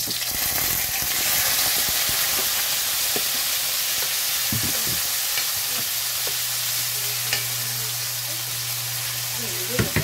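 Chopped onions, tomatoes and peppers hitting hot oil in a nonstick wok, sizzling loudly at once, then stirred with a wooden spatula that knocks lightly on the pan now and then. The sizzle eases a little toward the end.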